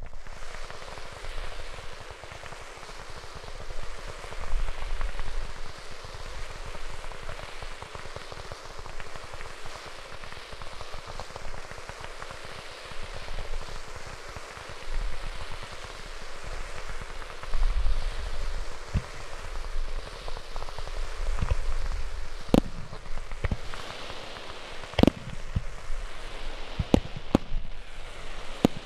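Aerial fireworks going off: a dense, continuous crackling hiss from crackle shells, with deep booms underneath. Toward the end, several sharp, loud bangs of bursting shells break through.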